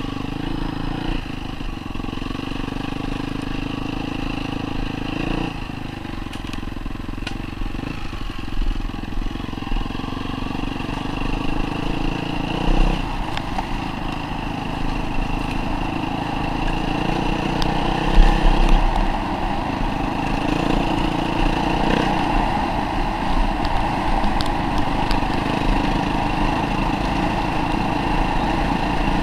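Dirt bike engine running under load on a rough dirt track, its pitch shifting with gear changes a few seconds in and again about halfway. Occasional knocks and rattles break through, the loudest a little past halfway.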